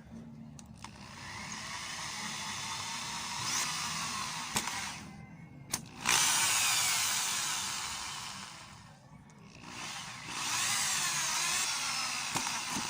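Small power drill boring holes, running in three bursts whose pitch rises and falls as it bites, with a couple of sharp clicks between the first two bursts.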